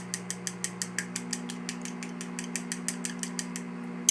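Chopsticks beating a raw egg in a bowl, clicking against the sides about six times a second with a brief pause near the end, over the steady hum of a running microwave oven.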